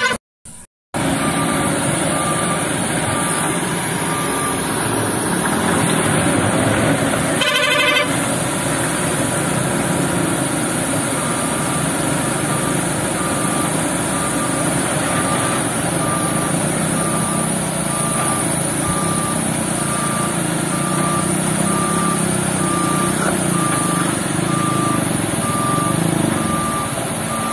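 Heavy diesel engines of JCB backhoe loaders running steadily during a truck recovery, with a reversing alarm beeping regularly, first briefly and then again from about ten seconds in.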